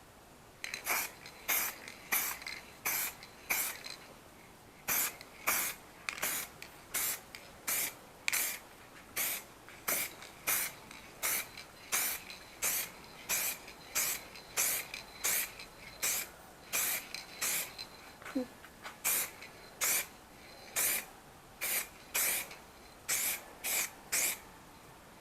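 Aerosol rattle can of primer spraying in short hissing bursts, about one and a half a second, with a pause about four seconds in: light stroke-by-stroke passes of primer.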